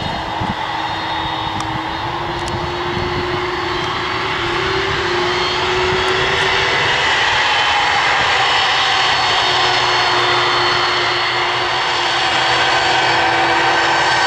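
Airbus A300-600 airliner's twin jet engines running with a steady whine as the aircraft rolls along the runway, growing gradually louder.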